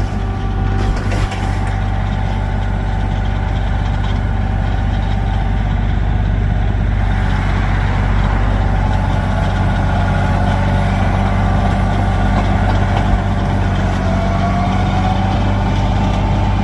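Tractor engine running steadily under way, a loud, even low hum that holds its pitch, with a faint tone rising slightly near the end.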